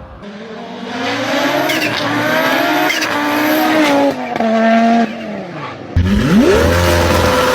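Car engine accelerating hard, its pitch climbing and then dropping twice as it shifts up through the gears. About six seconds in, a different engine sound cuts in abruptly, revving up quickly and then holding a steady note.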